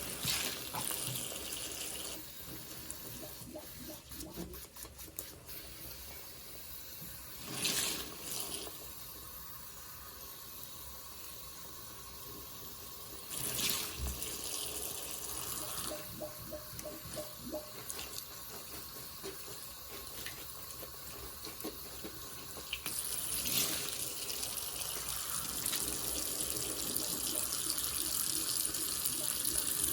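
Soapy liquid squishing and running out of a sponge soaked in purple Pine-Sol as it is squeezed, in several bouts, with a longer, louder stretch of running liquid near the end.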